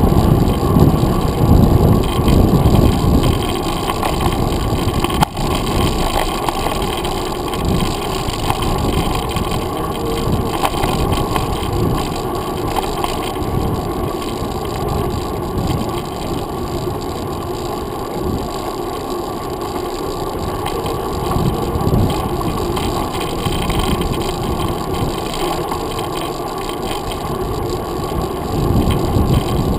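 Mountain bike rolling along a paved trail: a steady, uneven rumble of wind buffeting a handlebar-mounted microphone mixed with tyre and road noise, with a single sharp click about five seconds in.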